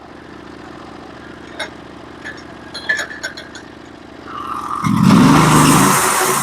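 Portable band sawmill's engine idling steadily, with a few light clicks and clatters. About four seconds in it revs up and the band blade spins up to begin a cut through the pine log.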